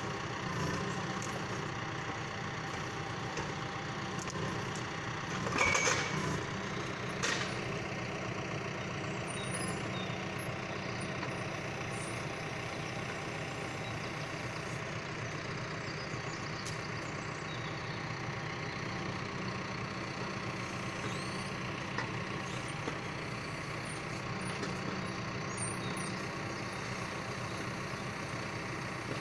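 John Deere 6115M tractor's diesel engine running steadily, powering the trailer's hydraulic timber crane. Two short sharp clanks break in about six and seven seconds in.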